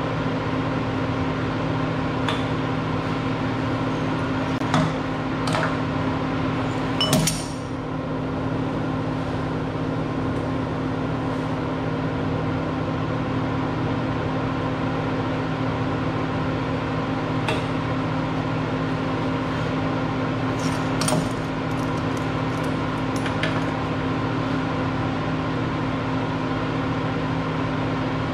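Steady machine hum with a handful of short metal clinks and clanks from steel parts being handled or set down, the loudest a few seconds in.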